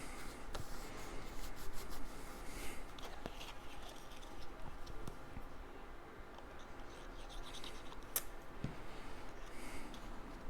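Cardstock panels being handled, pressed and rubbed into place by hand, with scratching and rustling paper and a few light taps, including a sharp click about eight seconds in.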